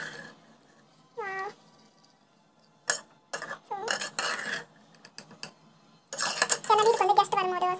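Metal ladle clinking and scraping against an aluminium pressure cooker as rice is stirred, in a run of clinks in the middle. A short pitched cry comes about a second in and a longer, wavering drawn-out cry near the end.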